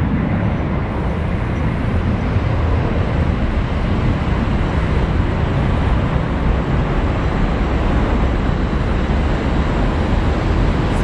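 Jet engines of a FedEx MD-11 trijet at takeoff thrust during its takeoff roll: a steady, deep rumble of jet noise.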